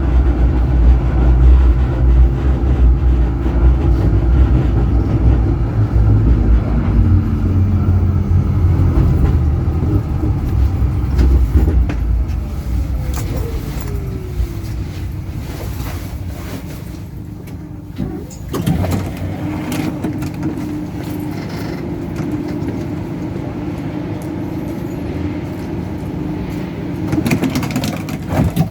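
Tram running on its rails, heard from the driver's cab: heavy rumble for the first several seconds, then a motor whine falling in pitch as it slows, with quieter rolling and a few clicks after the middle.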